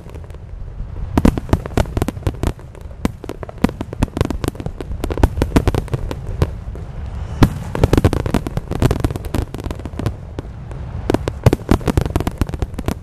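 Aerial fireworks display: a dense run of crackling, popping shell bursts, many a second, over a continuous low rumble of booms.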